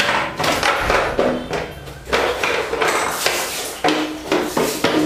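Background music with a quick percussive beat, about two hits a second, and a held note coming in near the end.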